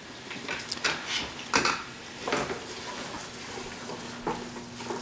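Cookware clatter: several sharp knocks and clinks of utensils against a pot, then a wooden spoon stirring chopped onions and tomatoes in the pot.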